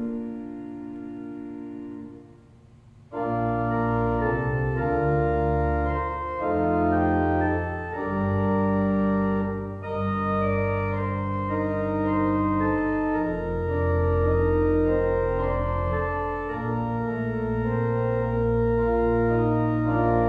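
Church organ played from a multi-manual drawknob console: a few soft held notes fade away, then about three seconds in full sustained chords with deep pedal bass come in and move from chord to chord.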